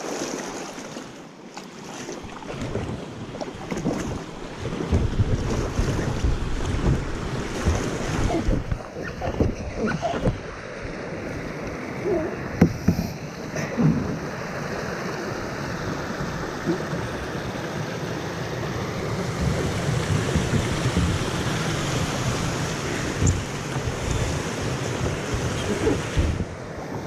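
Rushing river water as a sit-on-top kayak runs a small rapid, with water splashing against the hull and wind on the microphone. A few knocks sound around the middle.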